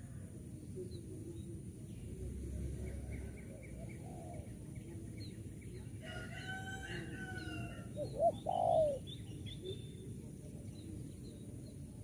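A spotted dove gives two short cooing notes about eight seconds in, the loudest sound. A couple of seconds earlier a rooster crows once, one long arched call, and small birds chirp faintly throughout.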